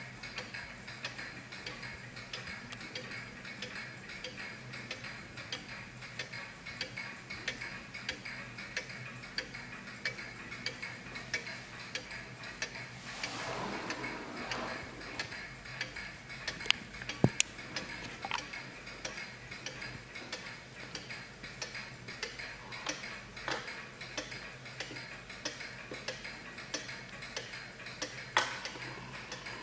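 Junghans mechanical wall clock ticking steadily and evenly, with a few louder clicks partway through.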